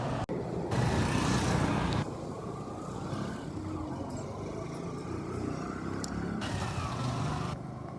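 Outdoor street sound with a motor vehicle running past. The level jumps up and down abruptly a few times.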